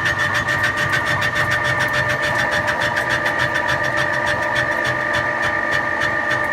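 CNC machine tool cutting a metal gate valve part: a steady high whine with a rapid, even ticking several times a second.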